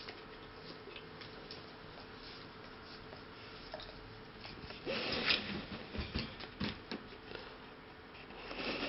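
Dog nibbling and licking bare toes: quiet at first, then from about five seconds in a run of short wet smacks and clicks of tongue and teeth.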